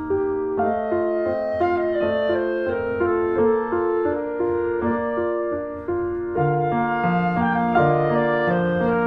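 Background music: a gentle piano melody with sustained woodwind-like notes, changing roughly every half second, with lower bass notes joining about six seconds in.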